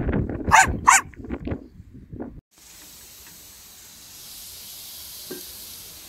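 A small dog barks twice in quick succession, about half a second apart, amid scuffling and snuffling around the lawn. After an abrupt cut, a steady hiss of a hot grill with a frozen burger patty on it runs through the rest.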